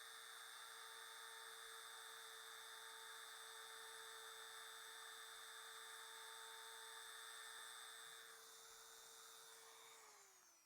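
Handheld rotary tool (Dremel) running at speed, a faint steady high whine with a hiss, used to drill an air bubble out of cured resin. It is switched off near the end and its pitch falls as it spins down.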